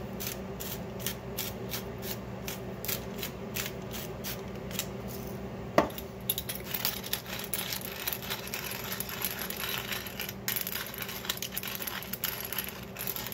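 Hand-twisted spice mills grinding salt and pepper: a regular run of sharp clicks, about three or four a second, then a single clink a little under six seconds in, then a denser, crackling grind.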